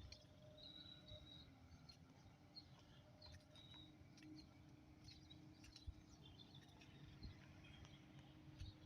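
Near silence: faint outdoor ambience with brief, scattered bird chirps.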